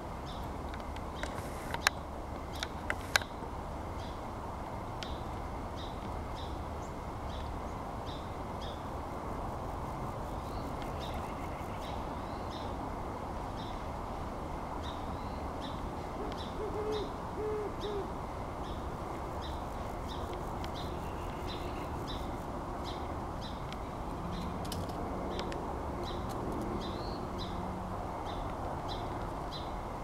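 Great horned owl hooting: a short run of deep hoots about halfway through, over steady background noise. Two sharp clicks sound about two and three seconds in.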